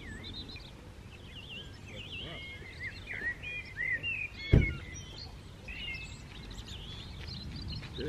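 Birds chirping and singing, with a car door shutting with one thud about halfway through.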